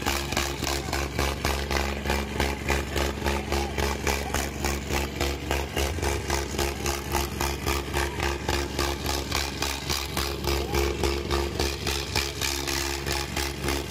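Eicher 557 tractor's diesel engine running at a steady speed, with a regular pulsing beat of a few pulses a second.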